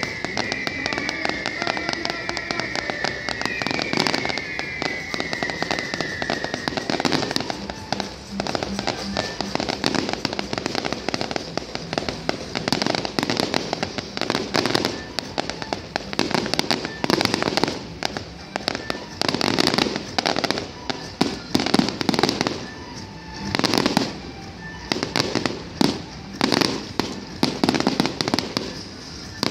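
Fireworks display: aerial shells launching and bursting with dense crackling, with high whistling fireworks in the first several seconds. Over the last few seconds loud bangs come in a quick run, about one every second or so.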